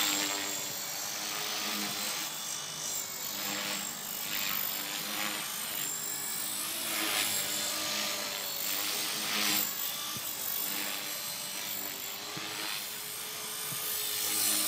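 HK-450 electric RC helicopter in flight: a steady motor and rotor whine that wavers in pitch as it manoeuvres, with a rushing rotor swish swelling several times.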